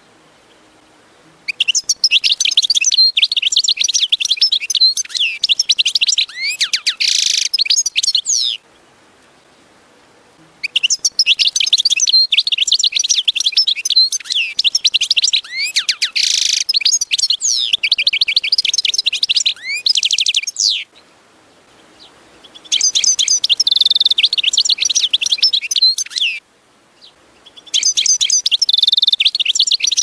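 European goldfinch singing: four bursts of fast, twittering song, each several seconds long, separated by pauses of one to two seconds.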